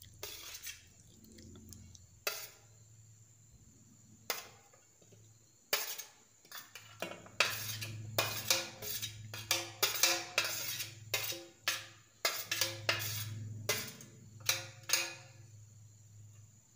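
Stainless-steel tray and bowl knocking and clinking against each other as food is tipped from one into the other: a few separate clinks at first, then a quick run of clinks and knocks through the middle, some ringing briefly.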